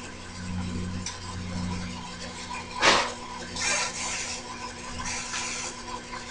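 Metal tools and parts being handled on a workbench: one sharp clack about three seconds in, then two short rasping scrapes, over a low hum.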